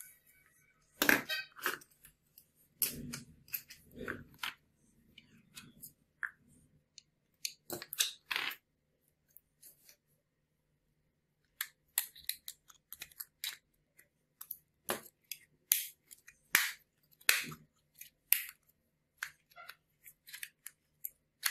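Irregular clicks and knocks of hard plastic parts being handled: a small DC motor pressed into toy-tractor wheel hubs, and the wheels set down on a wooden table. There is a quiet pause around the middle.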